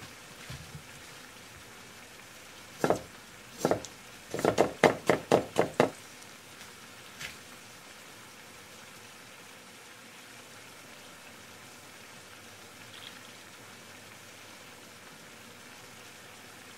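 Knife chopping on a wooden cutting board: two single chops about a second apart, then a quick run of about seven at roughly five a second. After that only a faint steady hiss remains.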